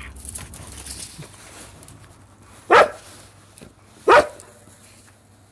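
A dog barks twice, two short barks about a second and a half apart.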